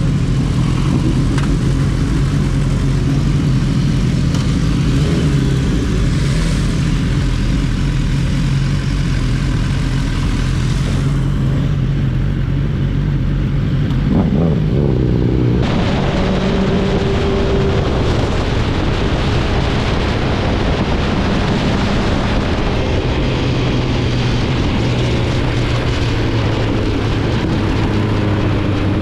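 Motorcycles riding in a group, the BMW sport bike's engine running under way with a rushing of wind over the microphone. The engine pitch steps up and down a few times as the bikes accelerate and change gear.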